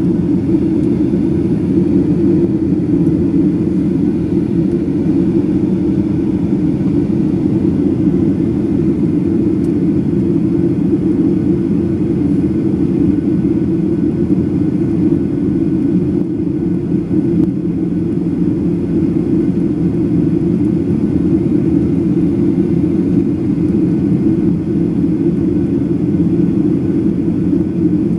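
Steady cabin noise inside a Boeing 737-800 in flight: a low, even rumble of airflow and its CFM56-7B engines heard from a window seat over the wing.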